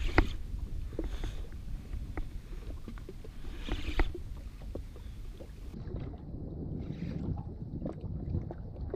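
Low rumble of wind and water against a jet ski, with scattered small clicks and knocks from a spinning reel being cranked and the rod being handled as a hooked fish is wound up. There is a louder knock just after the start and another about four seconds in.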